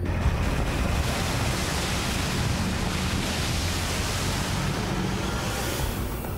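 Rough sea and wind rushing steadily, with the churning wake of a boat running through white-capped swells and a low rumble underneath.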